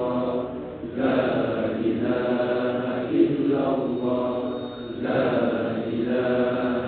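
Men's voices chanting Arabic dhikr in a melodic, repeating phrase that starts again about every two seconds.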